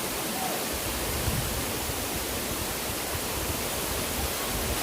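Waterfall rushing: a steady, even hiss of falling water with a low rumble underneath.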